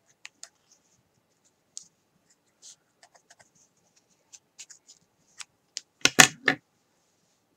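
Hands working yarn and small scissors on a knitted cowl while trimming a woven-in yarn end: scattered faint scratches and small clicks, then a quick run of three or four sharper clicks about six seconds in.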